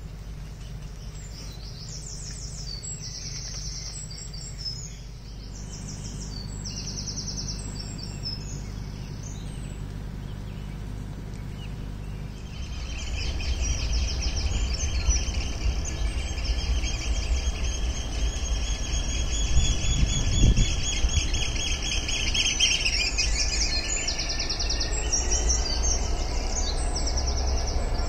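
Birds singing in short repeated phrases over a low distant hum. From about halfway, a Class 66 diesel locomotive's two-stroke V12 engine comes in as a low rumble that grows louder as it approaches, with a long high-pitched squeal over it for several seconds.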